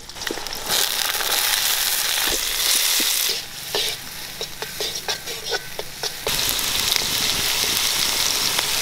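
Sliced onions and garlic sizzling loudly in hot oil in a metal kadai. About three seconds in, the sizzle drops for a few seconds while the ladle stirs, clicking and scraping against the pan, then rises again.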